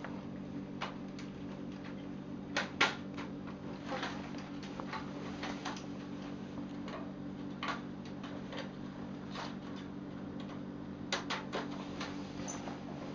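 Lego Technic plastic parts clicking and knocking as they are handled and fitted together: irregular sharp clicks, the loudest about three seconds in and a small cluster near the end, over a steady low hum.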